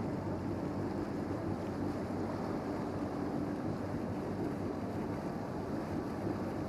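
Passenger ship's engines running with a steady low drone as the ship gets under way, with wind noise on the microphone.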